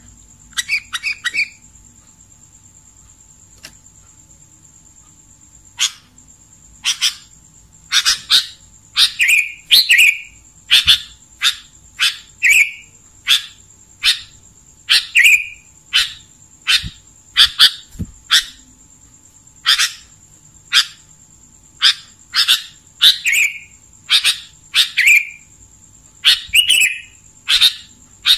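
Sooty-headed bulbul (kutilang) calling: short, clear phrases about one a second, with a few seconds' pause near the start before the calls resume. A faint steady high-pitched tone runs underneath.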